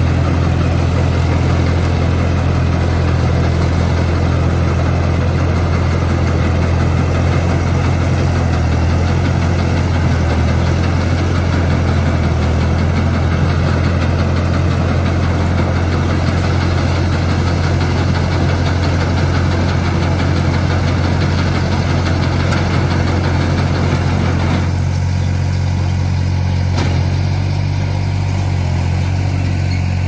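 A New Holland 3630 tractor's three-cylinder diesel engine runs steadily under load, driving a Maschio Entry 120 round baler through loose straw, with the baler's machinery clattering over the engine. Near the end the clatter drops away while the engine keeps running, as the finished bale is let out.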